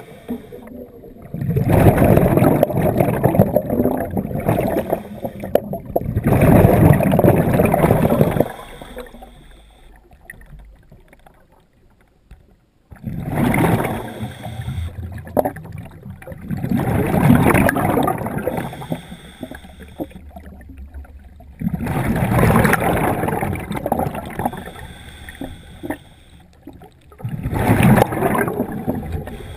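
Scuba diver's regulator exhaust: exhaled bubbles rush and gurgle past the underwater camera in bursts of two to three seconds, about every five seconds, each followed by a quieter gap for the inhale, with one longer pause about a third of the way through.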